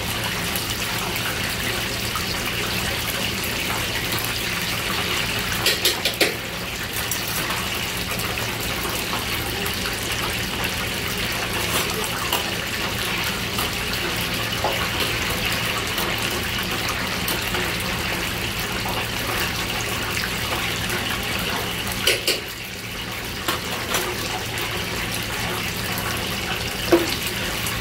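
Battered octopus pieces frying in a deep fryer of hot oil: a steady sizzling hiss of bubbling oil. A few sharp clicks of metal tongs on the fryer come about six seconds in, twice around twenty-two to twenty-four seconds, and near the end.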